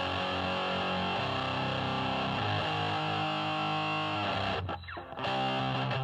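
Electric guitar through a 1986 Boss HM-2 Heavy Metal distortion pedal with all knobs turned fully up: held, heavily distorted chords in the pedal's buzzsaw tone, changing every second or two, with a brief gap about five seconds in.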